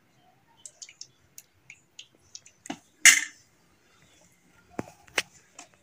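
A metal spoon clinking and tapping against a steel bowl: scattered light clicks, a louder short clatter about three seconds in, and two sharp knocks near the end.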